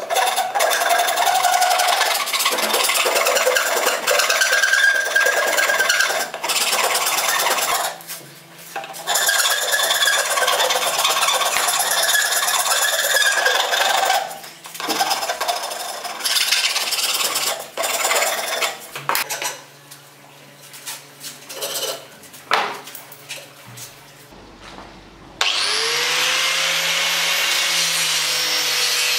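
Hand rasp filing a wooden spoon blank in long strokes, with short pauses, then lighter, scattered scraping strokes. Near the end an angle grinder with a sanding pad starts with a rising whine and then runs steadily.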